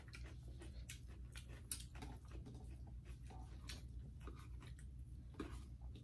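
A person chewing food: scattered soft mouth clicks, over a low steady hum.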